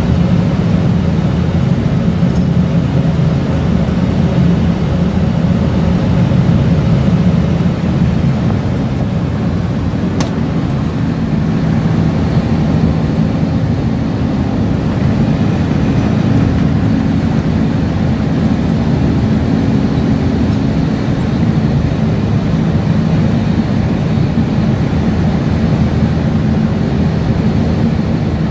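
Steady low drone of an offshore vessel's engines and machinery, with a single sharp click about ten seconds in.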